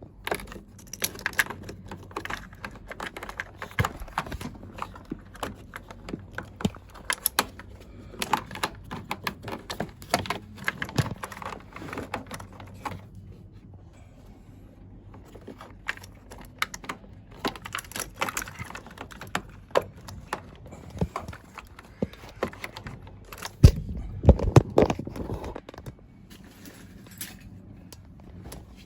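Irregular small clicks, taps and rattles of parts being handled during repair work, with a cluster of louder knocks about three-quarters of the way through, over a faint steady low hum.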